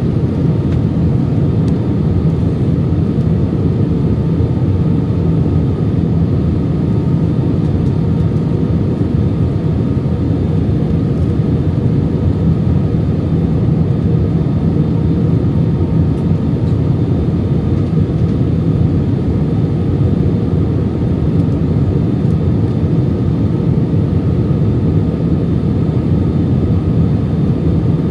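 Steady cabin noise of an Airbus A319-100 during its descent: a constant low drone of engines and airflow, with a few faint steady tones above it.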